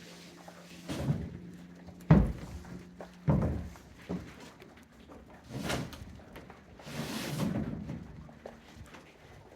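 Heavy wooden thumps and knocks as sheets of plywood are handled and set down on the roof framing, the loudest about two seconds in, followed by a scraping, rustling stretch near the end.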